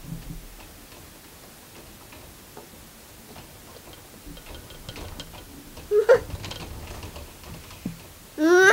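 A clock ticking faintly and steadily. About six seconds in, and again more loudly near the end, a young child's voice gives a short squeal rising in pitch.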